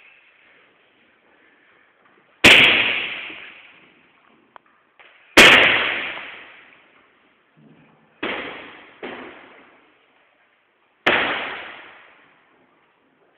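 Five hard blows landing on a free-standing punching dummy. Each is a sharp smack followed by a long echo off a large hall; the third and fourth come about a second apart.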